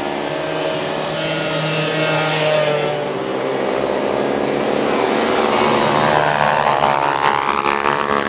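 Several racing quad ATV engines running hard and passing by, their pitches overlapping and shifting, with engines revving up to a higher pitch in the second half.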